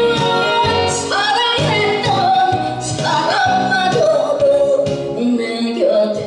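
A woman singing with vibrato into a handheld microphone, amplified over instrumental backing music.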